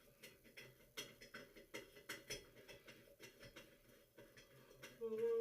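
Irregular small clicks and taps as faucet trim parts and a screwdriver are handled. Near the end, a louder drawn-out pitched sound begins and slowly drops in pitch.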